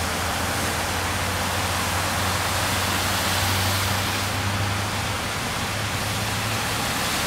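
Pickup trucks and a tanker truck driving through flood water covering the road: a steady rushing splash of tyres throwing up spray, with a low engine hum that is strongest around the middle.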